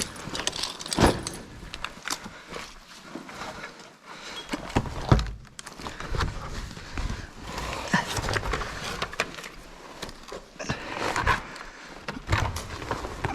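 Irregular scuffs, knocks and rustling of people moving about on foot over debris, with a few sharper knocks, the loudest about a second in and about five seconds in.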